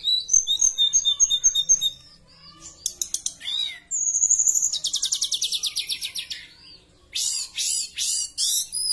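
Caged tledekan (a blue flycatcher) singing a varied song of clear, high notes: quick runs of repeated notes, a long fast trill falling in pitch about four seconds in, and several loud sharp calls near the end.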